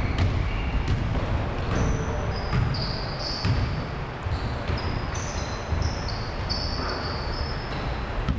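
Basketball bouncing on a hardwood gym floor, with repeated short, high-pitched sneaker squeaks from about two seconds in.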